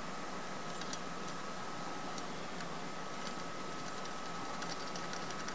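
Light metallic ticks and clicks from small bolts and the oil drain flange being handled and turned by hand on a turbocharger, scattered at first and more frequent near the end. A faint steady high tone runs underneath.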